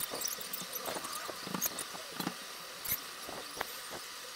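Graphite pencil scratching on sketchbook paper, sped up into a quick, irregular run of short scratches and ticks.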